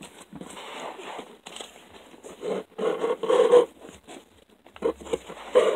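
Polystyrene packing peanuts and a cardboard box rustling and scraping as the peanuts are dug out by hand. The noise comes in uneven bursts, loudest about halfway through and again near the end.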